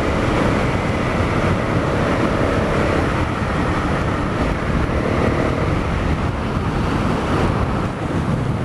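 Honda CRF250L's single-cylinder engine running under way through its stock muffler, with wind rushing over the microphone.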